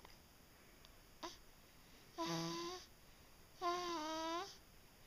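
A young girl snoring in her sleep: two high, whining snores about a second and a half apart, each lasting under a second.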